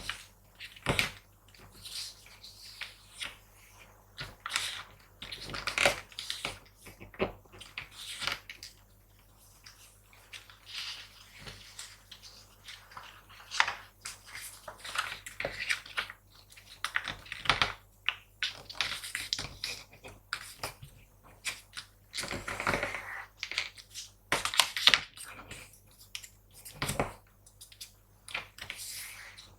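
A sheet of paper being folded and creased by hand: irregular crinkles, rustles and short sharp crackles as the folds are pressed down.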